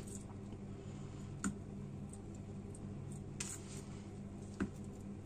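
Faint handling noises of a knife and a salmon fillet on a plastic cutting board: a few light clicks and a short scrape, over a steady low hum.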